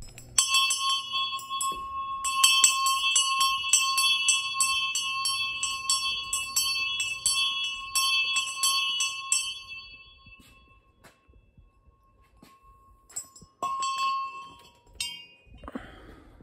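Cast bell-bronze bell rung rapidly by hand, about four strikes a second, giving a clear sustained ring with bright overtones. The ringing dies away about ten seconds in, and a bell is struck once more near the end.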